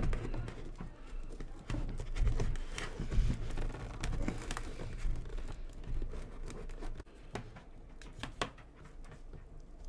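Hands handling the inside of a motorcycle helmet while fitting intercom earpieces: rustling and scratching of foam and fabric, with scattered small clicks. It is busier in the first half and quieter later.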